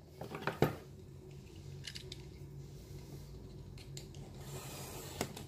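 Hands handling and pushing open a small cardboard box: a few light clicks and taps, loudest about half a second in, with soft rubbing and scattered small ticks after.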